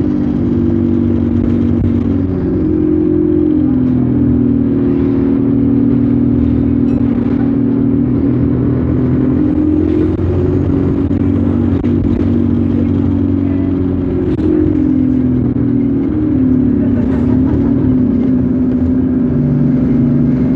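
ADL Enviro200 Dart single-deck bus's diesel engine running under way, heard from on board, its pitch rising and falling several times as the bus speeds up and slows.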